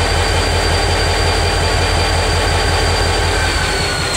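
Wheeling & Lake Erie diesel locomotive running at close range while standing: a loud, steady low throb with a high whine that drops slightly in pitch near the end.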